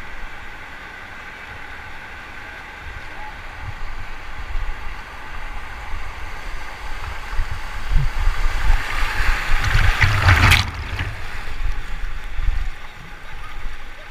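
Rushing whitewater of a river rapid around a raft, building up and peaking in a sharp burst of water noise about ten and a half seconds in.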